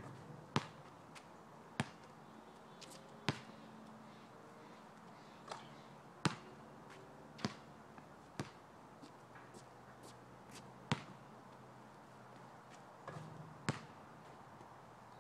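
Basketball thudding on an asphalt court during free-throw shooting: about nine single sharp bounces at uneven intervals.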